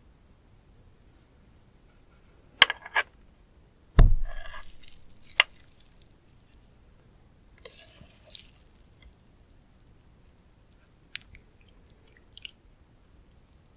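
Close-miked eating of tobiko (flying fish roe). A couple of sharp clicks come near the start, then a heavy low thump about four seconds in that dies away over about a second, followed by sparse chewing with small crackles and clicks.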